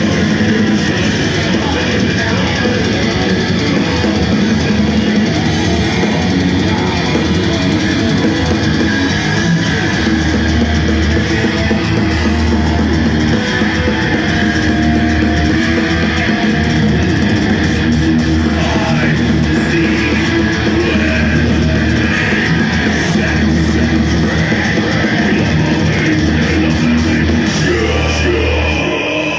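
Thrash metal band playing live: distorted electric guitars, bass and drum kit, heard from the crowd. The low end gets heavier about ten seconds in.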